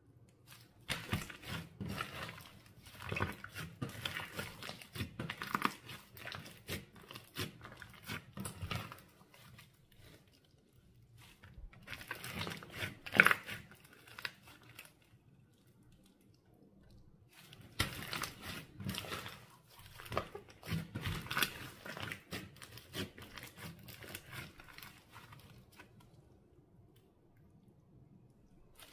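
Clear slime with makeup mixed in, squished and stretched by hand: dense sticky crackling and clicking in three spells with short quiet pauses between.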